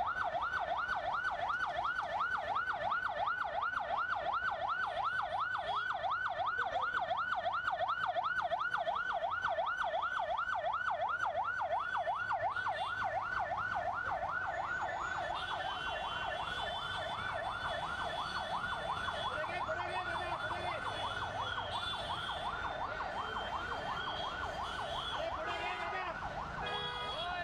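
Electronic siren warbling rapidly, its pitch sweeping up and down about four times a second without a break. It grows a little weaker in the second half, as some higher tones join in.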